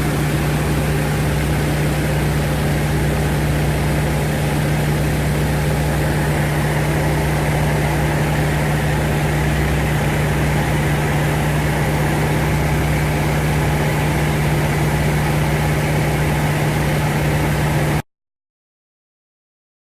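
North American T-28 Trojan's radial engine and propeller running at a steady, unchanging drone with a strong low hum. The sound cuts off abruptly near the end.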